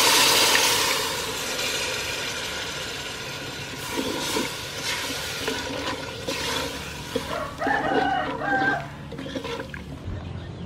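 Coconut milk poured into a hot pot of fried curry paste with carrot and potato sizzles loudly, the hiss fading over the first couple of seconds. A wooden spoon then stirs and scrapes in the aluminium pot, and a chicken calls a few times about three quarters of the way through.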